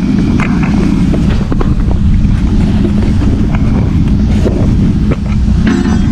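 Steady low rumble of a container ship's machinery mixed with wind buffeting the microphone, with scattered knocks and rubbing from the camera being handled.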